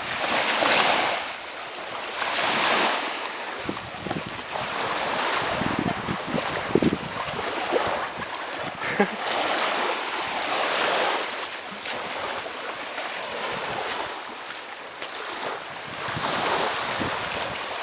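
Small waves washing up onto a sandy beach, the hiss of the surf swelling and fading every couple of seconds.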